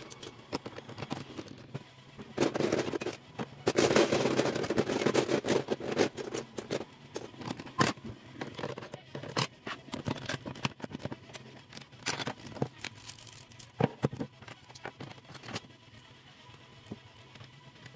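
Plastic Lego bricks clicking and rattling as pieces are handled and pressed onto a baseplate. There is a denser rattle of bricks being rummaged a few seconds in, with scattered sharp clicks through the rest.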